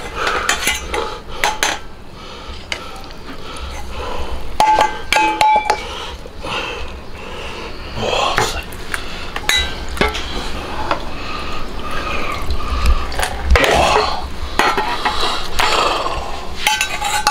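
A long metal ladle clanking and scraping against a pressure-cooker pot and a stainless steel tray as braised pork hocks are lifted out, a steady run of knocks with a couple of brief ringing metal tones.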